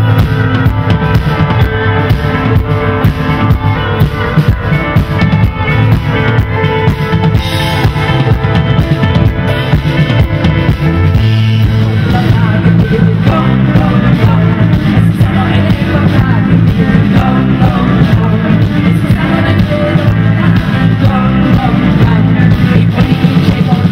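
Live band playing a song on stage: a drum kit keeps a steady beat over electric bass. The low end grows heavier about halfway through.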